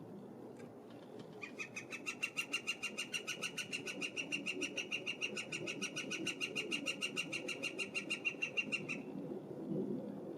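A woodpecker calling: one long, even series of high notes, about eight a second, starting about a second and a half in and stopping near the end.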